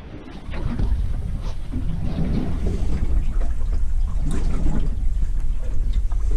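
Wind buffeting the microphone, a steady low rumble, with a few faint clicks on top.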